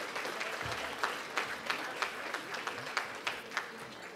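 Audience applauding, a dense clatter of hand claps that thins out and fades near the end.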